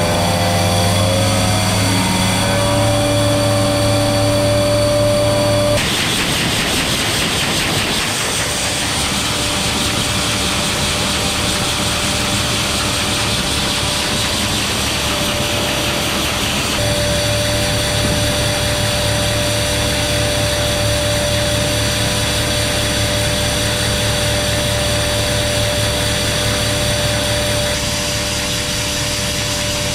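Grain vacuum running steadily while moving soybeans, a machine hum with a steady whine. About six seconds in the sound changes abruptly to a rushing hiss as the intake tube sucks soybeans off a bin floor, and the whine comes back partway through.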